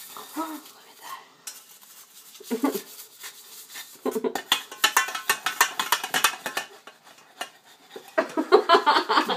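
Metal kitchenware being handled while washing up: a stainless steel pot clattering and clinking in rapid small knocks, busiest from about four to seven seconds in.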